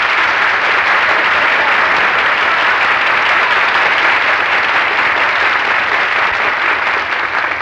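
Studio audience of a 1948 radio broadcast applauding a guest's introduction, steady and loud, dying down near the end.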